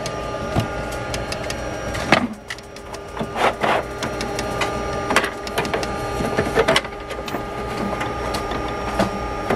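Cut-out speaker-bracket pieces being pushed and lifted out of a thin laser-cut sheet in a laser cutter's bed: scattered sharp clicks, knocks and scrapes of thin board. A steady machine hum with a few level tones sounds underneath.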